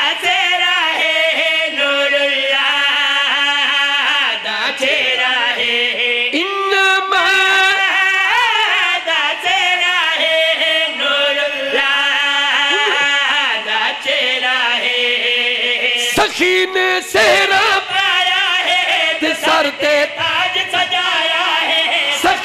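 Men singing a Punjabi devotional qaseeda into microphones, with long, wavering held notes and melodic glides, other voices joining the lead. There are no instruments.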